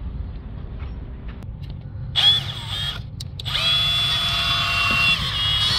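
Power drill spinning a cable down the blocked pressure-sensor pipe to break up hardened carbon inside it. It gives a short run about two seconds in, then a steady run from about three and a half seconds on.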